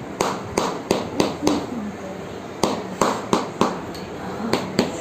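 A hammer striking the patient's body during hammer massage, with sharp knocks at about three a second. They come in three runs: five strikes, a short pause, four more, then two near the end.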